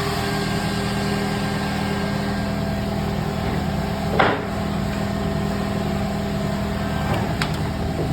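Edgebanding machine running with a steady hum, a brief sharp clack about four seconds in and a couple of lighter clicks near the end.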